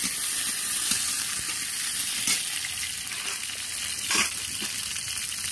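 Tomato and green chillies sizzling in hot oil in an iron kadai, with a metal spatula stirring and scraping the pan a couple of times, about two and four seconds in.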